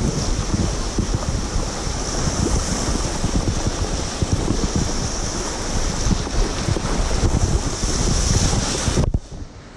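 Small waves breaking and washing over the shallows, with wind rumbling and buffeting on the microphone. The sound drops away abruptly about nine seconds in.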